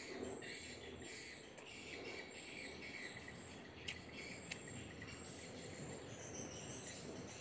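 Steady chirring of insects with birds chirping, faint, with two sharp clicks about halfway through.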